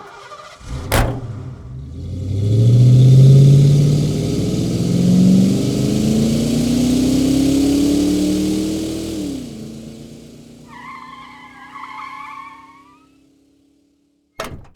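Car sound effects: a sharp knock, then a car engine revving hard and climbing in pitch through several steps over loud road and wind hiss. The engine eases off, a wavering tyre squeal follows for about two seconds, and a short hit comes right at the end.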